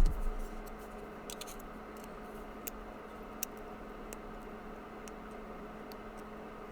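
A thump at the very start, then small, scattered metal clicks of a gutted lock being handled and felt over, over a faint steady hum.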